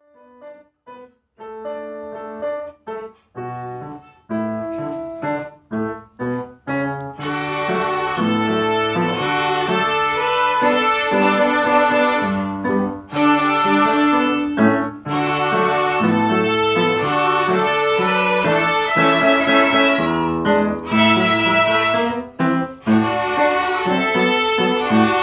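Instrumental background music: sparse separate notes for about the first seven seconds, then a fuller, continuous passage.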